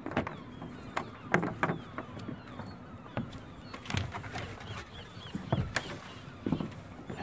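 Irregular knocks, clicks and rustles of lines being freed from cam cleats and of someone moving about a small sailboat's fiberglass deck and cockpit. A bird chirps a few times about five seconds in.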